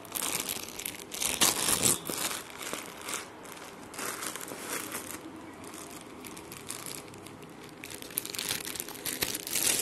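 Grey plastic courier mailer crinkling and rustling in irregular bursts as it is handled and cut open with scissors, loudest between one and two seconds in.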